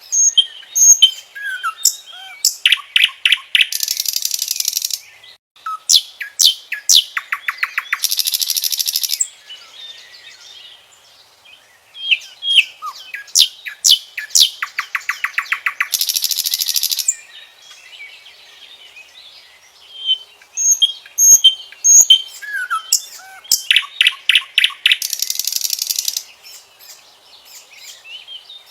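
Common nightingale singing in about four separate phrases with short pauses between them. Each phrase mixes clear whistled and sliding notes, fast runs of rapidly repeated notes, and loud buzzy rattles.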